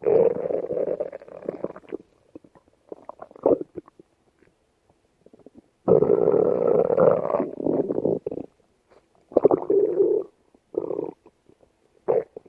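Stomach growling: a long rumble lasting about two seconds, a few short rumbles, another long rumble about six seconds in, then several short bursts near the end, with quiet gaps between.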